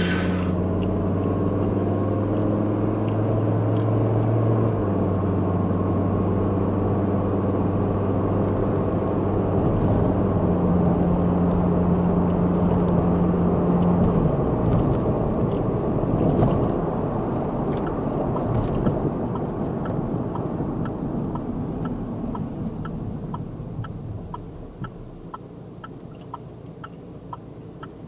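A motor vehicle's engine running with a steady low hum that shifts in pitch a few times, then fades away over the last several seconds.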